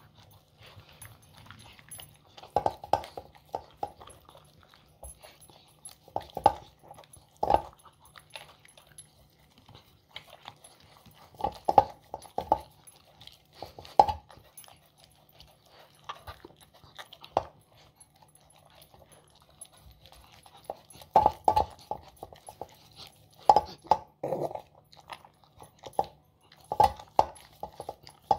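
Beagle licking and nosing a stainless steel food bowl seated in a wooden stand, the bowl knocking and ringing in short clusters of a few clanks every few seconds.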